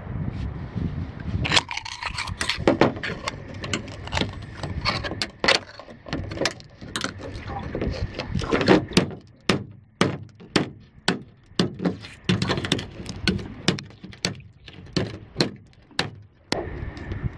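A knife blade scraping and prying against shell, then a run of sharp clicks and cracks, about one or two a second, as the knife cuts into a sea urchin's hard spiny shell.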